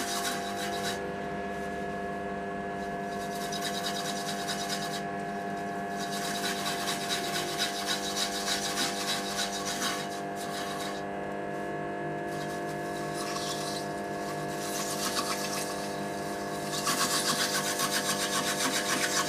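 Homemade lathe running with a steady hum while a clump of wood shavings is pressed against the spinning wooden bowl, a scratchy rubbing that comes and goes in stretches. The shavings are being used to buff a natural oil finish onto the bowl.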